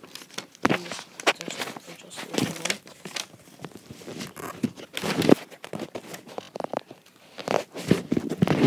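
Handling noise on the hand-held recording device: irregular knocks, rubs and rustles close to the microphone.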